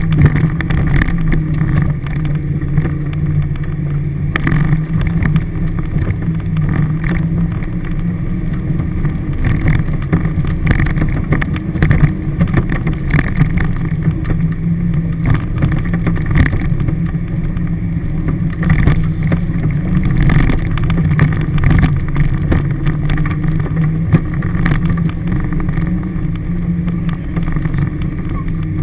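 Four-wheel-drive's engine heard from inside the cabin, running steadily with a low drone while driving a rough bush track. Frequent short knocks and rattles come from the vehicle jolting over the track.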